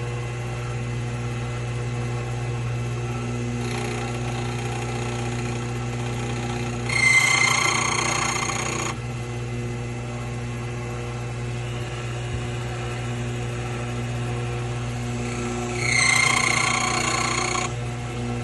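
Key-cutting machine running with a steady motor hum, cutting a new key blank: two louder, higher-pitched passes of the cutter, about seven and sixteen seconds in, each lasting about two seconds.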